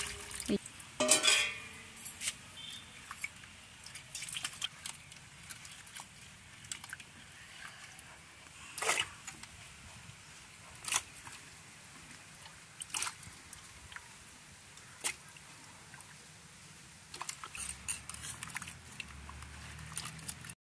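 Hands washing cut kham aloo (greater yam) pieces in water in a stainless steel pot: faint sloshing and dripping, with scattered sharp knocks of the pieces against the steel every couple of seconds, the loudest about a second in.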